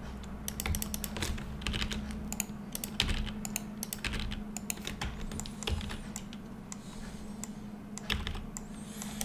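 Irregular clicking of a computer keyboard and mouse used for 3D modelling, many separate clicks over a low steady hum.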